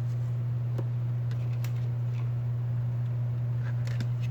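Steady low hum throughout, with a few faint, light clicks of small tools working on the phone's parts.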